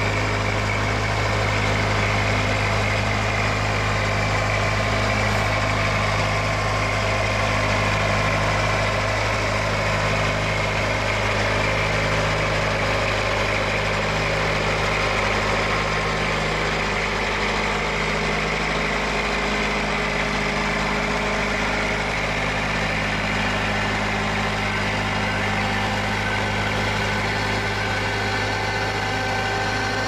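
Black currant harvester running steadily: a continuous engine hum with a faint high whine from the machinery above it.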